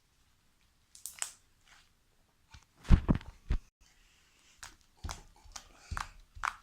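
Slime squeezed and worked by hand close to the microphone: irregular sticky crackles and pops, with a heavier squelch and bump about three seconds in.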